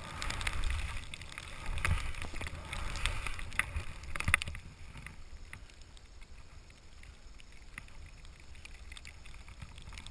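Skis plowing through deep powder snow, a rushing hiss with a low rumble of wind on the body-mounted camera and scattered clicks and knocks; it drops to a quieter, even hiss after about four and a half seconds.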